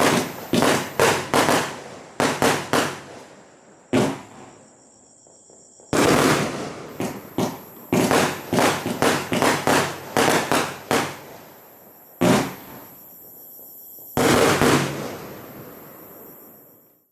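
Consumer firework cake with 1–1.2 inch shells, firing its shots in rapid volleys of sharp bangs, several a second, broken by short pauses. A few shots trail off in a longer crackling fizz.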